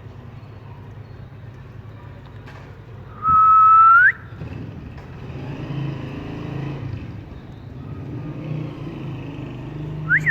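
A parrot gives one loud whistle, held on a steady note and then sweeping sharply upward, and two short rising chirps near the end. A steady low rumble runs underneath.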